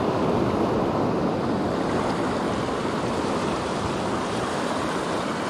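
Fast mountain river rushing steadily, its strong current making a loud, even roar of water.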